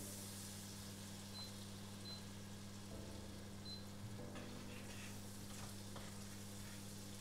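Faint sizzling of butter and pan drippings in a pot on the stove as a spoon stirs them, over a steady low electrical hum.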